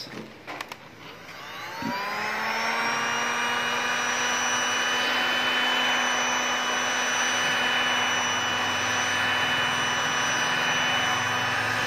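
Heat gun (hot-air blower) switched on: its fan motor spins up over about a second, then runs steadily with a whine over rushing air.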